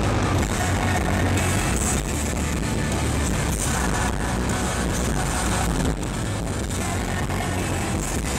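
Live rock band playing loudly, with drums, bass guitar and a singing voice, heard through a camera microphone in the crowd.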